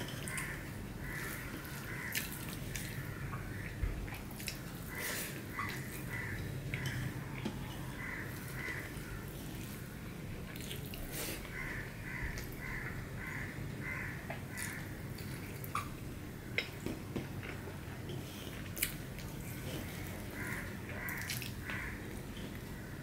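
Fingers mixing rice and curry on a steel plate, with small sharp clicks and scrapes, and eating sounds. In the background a bird calls in short runs of repeated notes, several times.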